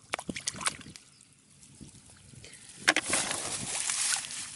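Muddy water being stirred and splashed, with a few light knocks in the first second, then a sharp splash about three seconds in followed by water running and trickling for a second or so.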